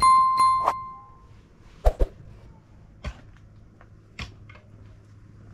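A bright bell-like chime, the ding of a subscribe-button notification sound effect, rings out at the start and fades over about a second. After it come a few scattered light knocks and taps.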